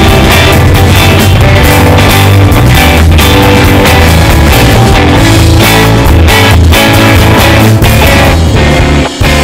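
Loud rock music with electric guitar and a steady drum beat.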